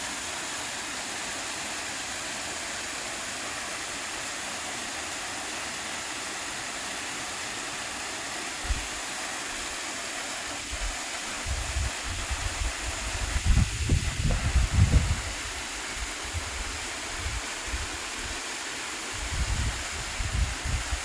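Virje waterfall plunging into its pool: a steady, full rushing roar of falling water. Irregular low rumbling bumps come in about halfway through and again near the end.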